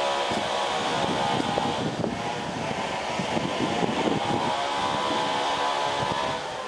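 An engine running steadily, dropping off near the end.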